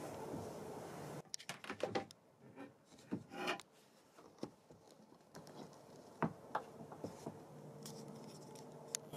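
Close handling noise: a quick run of irregular clicks and rubs, then a longer scrape about three and a half seconds in, followed by a few scattered clicks. The steady background hiss cuts out about a second in.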